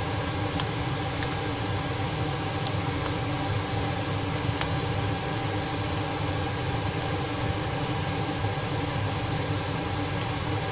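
Steady whirring hum of a running fan fills the kitchen, with a few faint, sharp clicks of a spoon touching the pot as the rice is mixed.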